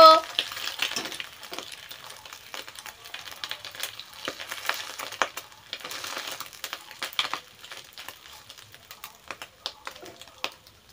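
Egg frying in a wok, a light sizzle broken by many short clicks and scrapes of a metal spatula against the pan as the egg is turned and pressed.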